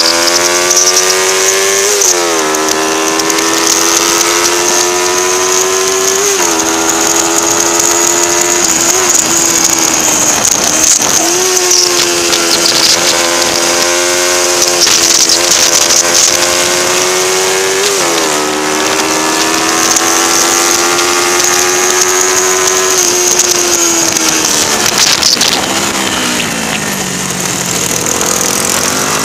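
Onboard sound of a race-prepared 1977 Honda 125 twin, its small four-stroke parallel-twin engine held at high revs, the pitch climbing steadily in each gear and dropping sharply at four upshifts. Near the end the revs fall away as the rider eases off, then pick up again.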